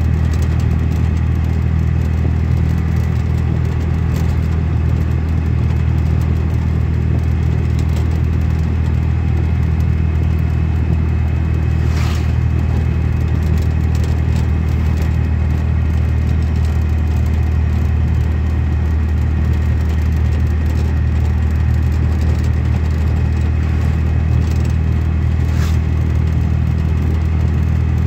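Steady low rumble of engine and road noise from a motor vehicle driving at speed, heard from inside its cabin. Two brief sharp sounds cut through it, about twelve seconds in and again near the end.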